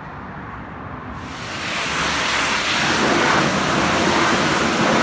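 High-pressure car-wash spray: a loud, steady hiss of water jetting that comes in about a second in and builds, over a low steady hum.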